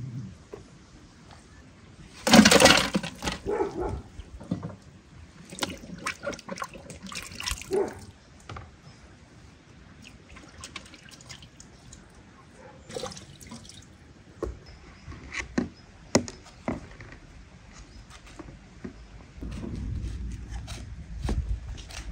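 Fruit being washed by hand in a large pot of water: irregular splashing and dripping as quinces and then pomegranates are dipped and lifted out, with the loudest splash about two seconds in.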